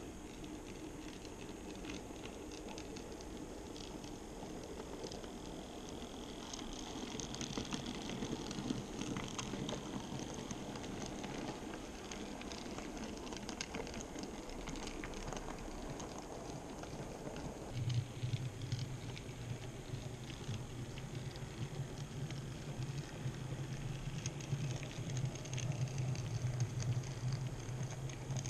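N-scale model freight train running past, its wheels clicking and rattling steadily over the rails and points. About two-thirds of the way in a steady low hum starts and runs on under the clicking.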